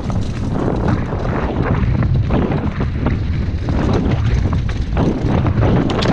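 Wind buffeting a helmet-mounted camera's microphone as a downhill mountain bike rides fast over a loose dirt and gravel trail, with tyre noise and frequent irregular knocks and rattles from the bike over bumps.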